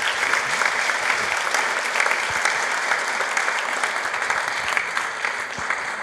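Audience applauding, a dense, steady clatter of many hands clapping.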